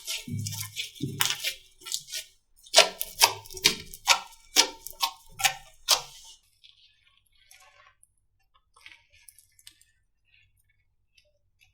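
Slime being pressed and squeezed by hand: a run of clicky, popping presses, about two a second, that stops about six seconds in, leaving only faint small clicks.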